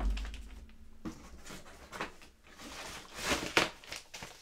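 A dull thump at the start, then rustling and crinkling of plastic with small knocks, loudest about three and a half seconds in. It is the sound of handling plastic-bagged CGC graded comic slabs: one is set down and the next is taken from the box.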